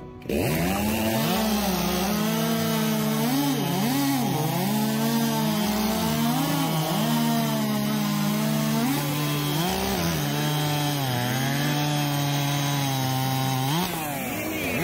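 Two-stroke racing chainsaw, a 4 cubic inch class saw, revving up about a third of a second in and cutting rounds off a log at full throttle. The engine note dips repeatedly as the chain bites into the wood and recovers between cuts, then eases off near the end.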